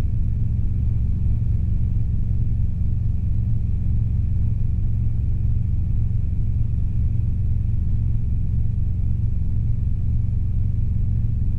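Robinson R22 helicopter's engine and rotors running steadily in the cabin during a climb: a constant low rumble with a faint high whine above it.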